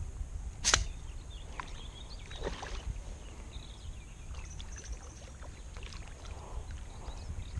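Wind rumbling on the microphone, with light water splashes and knocks. A single sharp click or splash comes just under a second in.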